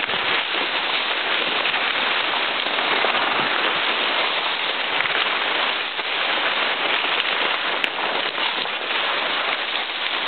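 Dense, steady crackling and rustling of palmetto fronds and brush as someone pushes through thick undergrowth, the leaves brushing close to the microphone.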